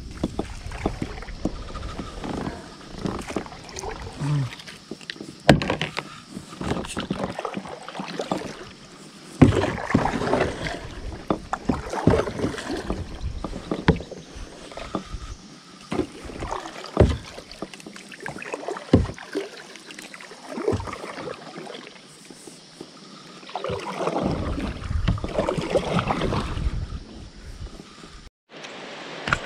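Plastic kayak being worked through shallow, grassy water: irregular knocks of the paddle and gear against the hollow hull, with bursts of splashing and grass rustling along the sides.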